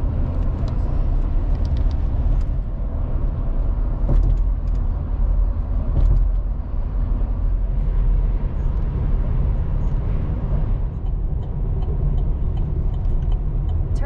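Steady low road and engine rumble heard from inside the cab of a moving vehicle.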